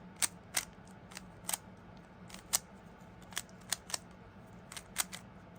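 Rubik's Cube layers being turned quickly by hand, giving sharp plastic clicks at irregular intervals, about a dozen in all, sometimes two or three in quick succession. A faint steady hum runs underneath.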